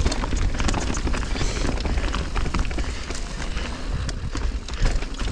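Mountain bike clattering downhill over rough, rocky trail at speed: a dense run of irregular knocks and rattles from tyres and frame hitting rock, over a constant low wind rumble on the microphone.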